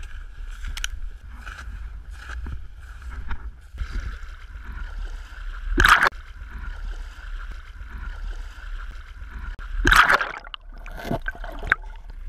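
Boots crunching through deep snow in a string of steps, over a steady low rumble on the action camera's microphone. Two loud knocks stand out, about six and ten seconds in.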